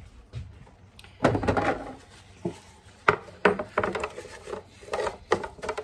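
A glass storage container being handled and set on a wooden countertop: a few knocks and scrapes, the biggest about a second in, then a run of short clacks.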